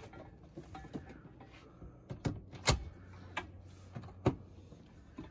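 Wooden camper-van tabletop being hung onto its wall rail and set into place: a handful of sharp knocks and clicks, the loudest just past the middle.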